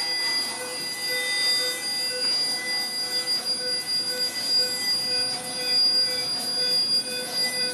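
Electronic sound-art drone of several steady, high-pitched tones held together over a grainy hiss. The highest tone is the strongest, and a lower tone pulses on and off.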